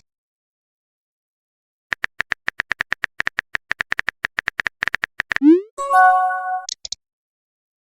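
Phone keyboard typing sound effect: a quick run of even taps, about seven a second, for roughly three and a half seconds. It is followed by a rising whoosh as the message sends and a short chime of a few steady notes.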